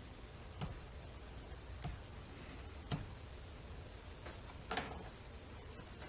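Lock picks clicking inside a Western Electric 30C lock as it is picked: four sharp clicks a second or more apart, the last one the loudest.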